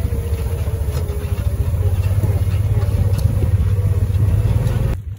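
A farm vehicle's engine running steadily at low speed, with a fast, even low pulse. It cuts off abruptly just before the end.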